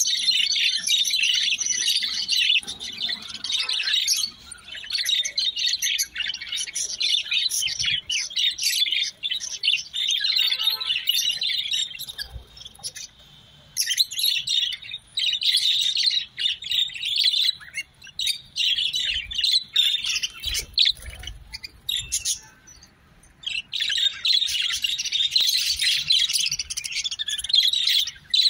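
A caged flock of budgerigars chattering and chirping nonstop, a dense, high-pitched warbling mix of many birds at once. It eases off briefly a few times midway, then picks up again.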